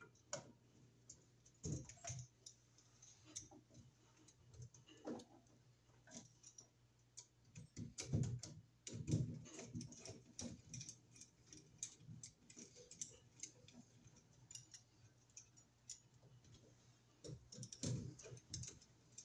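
Faint, irregular clicks and scrapes of a screwdriver against a duplex receptacle's metal mounting strap and screws as the receptacle is pressed into its wall box and screwed down.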